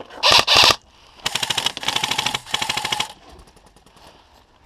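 Airsoft electric gun firing on full auto: a rapid stream of shots with the whine of its motor and gearbox, lasting about two seconds and starting about a second in. Two short, sharp bursts of noise come just before it.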